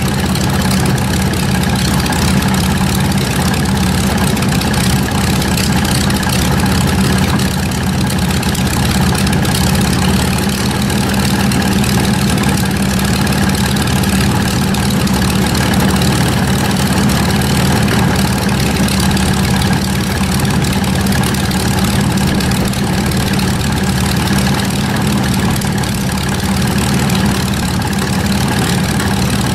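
Velocity XL's piston aircraft engine running steadily at idle, turning a three-bladed carbon-fiber Aero Composites pusher propeller.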